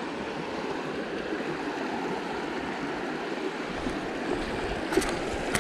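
Fast-flowing river rushing steadily, with a couple of light clicks near the end.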